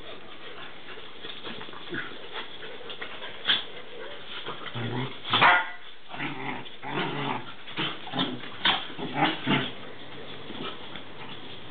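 A young German shepherd and a dachshund play-fighting: a few light scuffles at first, then from about halfway a rapid run of short growls and yaps, with sharp clicks mixed in.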